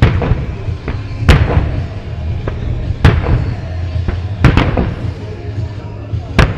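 Aerial firework shells bursting over the sea, fired by Marugo: six sharp booms about one to two seconds apart, two of them in quick succession past the middle, over a steady low rumble.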